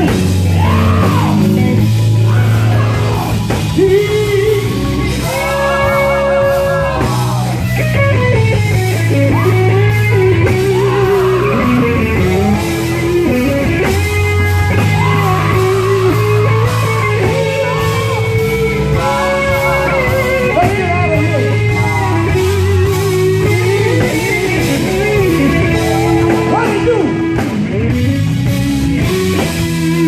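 Live gospel quartet music: a lead singer singing through a microphone over an amplified band with guitar and a steady low bass line.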